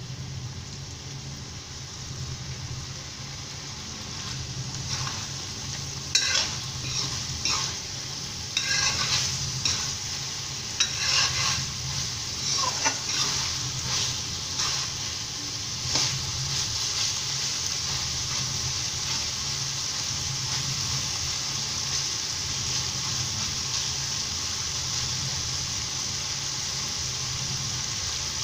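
Metal spoon stirring and scraping potato and cauliflower in an aluminium kadai, over a steady sizzle of the vegetables frying. The scraping strokes come in irregular runs through the first half, then mostly the sizzle continues, with a low steady hum underneath.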